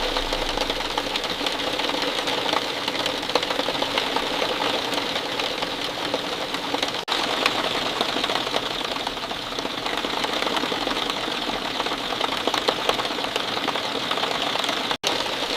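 Steady rain falling, a dense, even patter of many quick drop ticks. The sound cuts out for an instant about seven seconds in.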